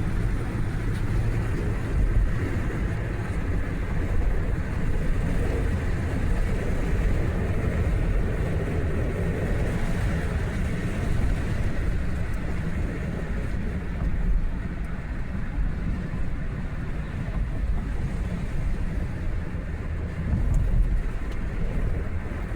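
Steady low rumble of a car on the move, heard from inside: engine and tyre noise on the road.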